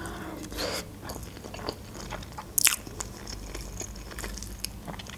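Close-miked mouth sounds of a person chewing a mouthful of shrimp pasta, soft and wet, with a single sharp click about halfway through.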